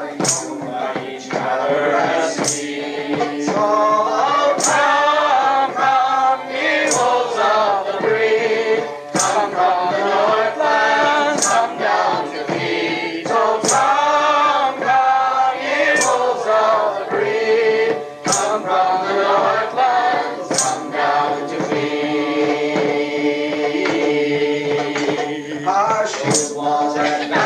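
A group choir singing a folk-style song together, many voices carrying a continuous melody.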